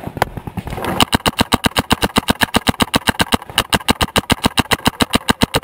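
Paintball marker firing a rapid, evenly spaced stream of shots, about ten a second, starting about a second in after a few scattered clicks.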